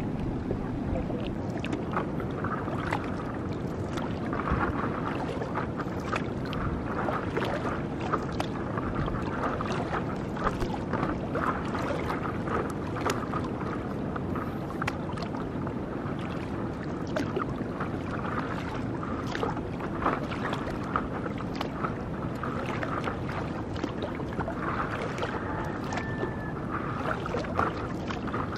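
Water splashing and trickling around a stand-up paddleboard as it is paddled across calm sea, with many small splashes and drips from the paddle strokes.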